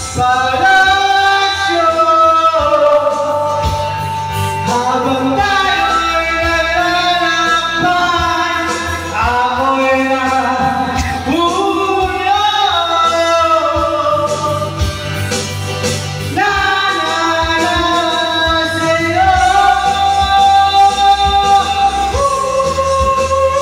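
A man singing a slow song into a handheld microphone over backing music, with long held notes that bend and glide between pitches.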